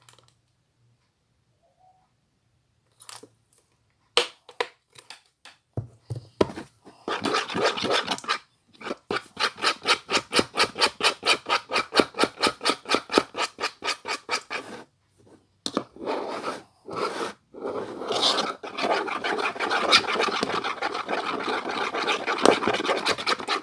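Glue and shampoo being stirred in a bowl for slime, a utensil scraping the bowl in quick, rhythmic strokes, several a second, turning into denser, continuous scraping in the second half. A few clicks come first.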